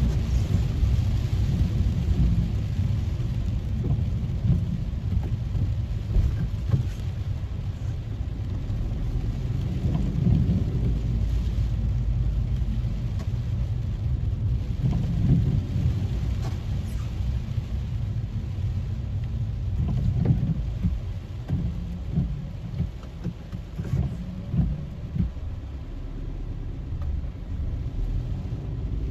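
Rain falling on a car's roof and windscreen, heard from inside the cabin, over a steady low rumble of the car moving on the wet road, with scattered small ticks of drops striking.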